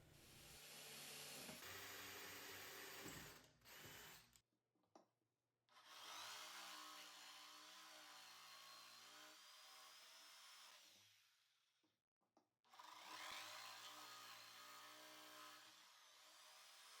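Faint power tool motor running in several stretches, winding up in pitch about six seconds in and again about thirteen seconds in.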